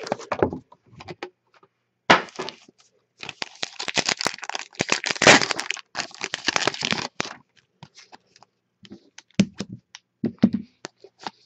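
A foil trading-card pack is torn open and its wrapper crinkled, a dense crackling rustle from about three to seven seconds in. After that come scattered light clicks and taps as the cards are handled.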